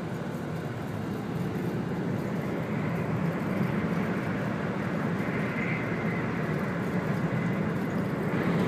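Running noise heard inside the passenger cabin of a 100 series Shinkansen train at speed: a steady rumble of wheels on rail and train body. It grows louder near the end.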